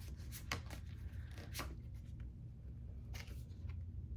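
Cards and paper packaging being handled by hand: a few short, sharp rustles and crinkles over a low steady hum.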